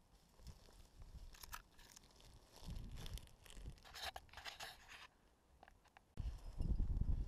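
Crackling and scraping of a climber's hands and gear rubbing close to the camera. About six seconds in, a sudden low rumble of wind on the microphone takes over.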